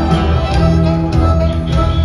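Live rock band playing, with electric guitar over a steady drum beat, heard from within the audience.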